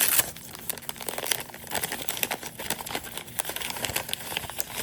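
Packing paper crinkling and crumpling as it is handled and pulled apart: a continuous run of irregular crackles.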